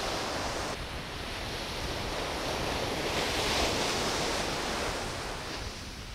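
Surf washing onto a beach, one wave swelling about three seconds in and easing off near the end, with wind buffeting the microphone.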